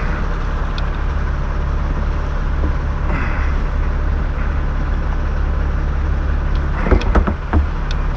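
Bucket truck engine idling steadily, with a few short clicks or knocks about seven seconds in.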